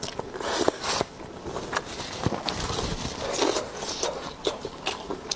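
Close-miked eating sounds: irregular chewing with wet mouth clicks and smacks, and a few short crunchy or slurping bursts.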